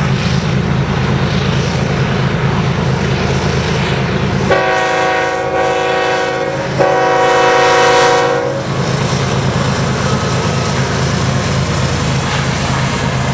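GE ES44DC diesel locomotive's engine rumbling under load, then its air horn sounding two long blasts of about two seconds each, back to back, starting about four and a half seconds in; the rumble resumes after the horn.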